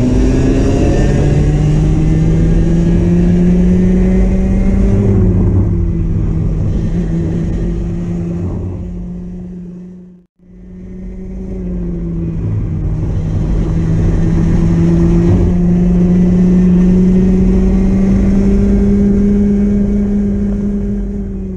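Racing kart's two-stroke engine heard onboard at speed, its pitch climbing slowly along the straights and dropping for the corners. It fades out about halfway through and fades back in.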